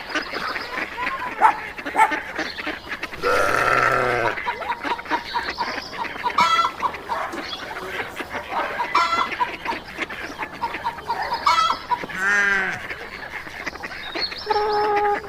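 Farm poultry calling repeatedly: many short calls, with longer drawn-out calls at about three to four seconds in and again near twelve seconds.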